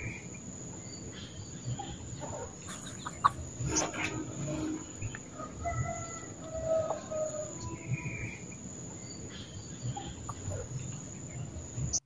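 Scattered bird calls, some low and clucking, over a steady high-pitched insect buzz, with a few sharp clicks about three to four seconds in.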